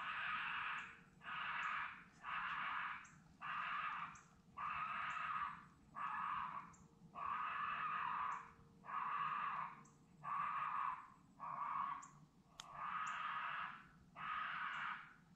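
Raccoon call sounding a run of harsh, raspy squalls, one about every second with short gaps, to lure raccoons in.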